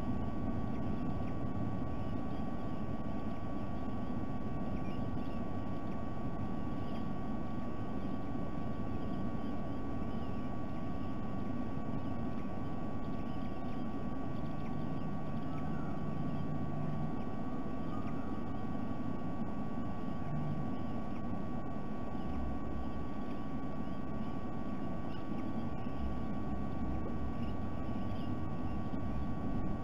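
Steady low rumble of background noise, with a constant thin electrical whine over it, picked up by a nest camera's microphone.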